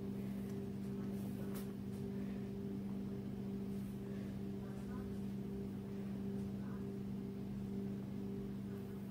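A steady low hum holding one pitch, with a few faint light clicks over it.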